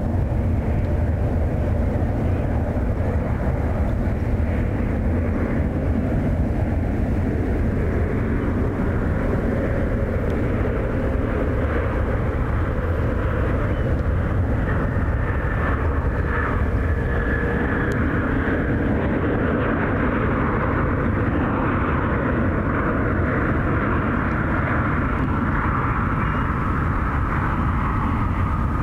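Airbus A350's Rolls-Royce Trent XWB jet engines running, a steady deep roar with a whine that appears about halfway through and slowly falls in pitch.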